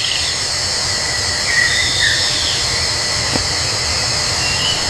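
Steady hissing background ambience with a few faint, short, high chirps.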